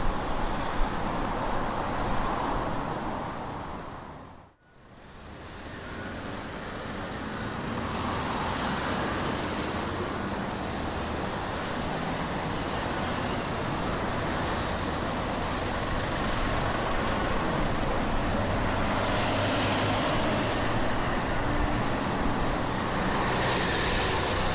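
Steady road noise inside a moving car's cabin, a low rumble under a tyre hiss. It fades almost to nothing about four seconds in, then comes back up and holds steady.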